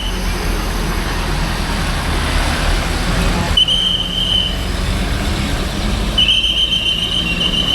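Bus engines running with a steady hiss of rain and traffic. A high, steady tone sounds twice, about a second long a little past halfway and longer near the end.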